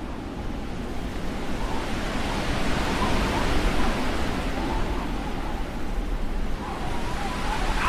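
Blizzard wind blowing in slow gusts that rise and fall, with a faint whistling tone that wavers in pitch and grows stronger near the end.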